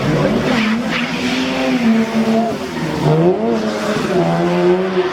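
Car engine held at fairly steady revs, its pitch dipping briefly about three seconds in, then climbing back and settling.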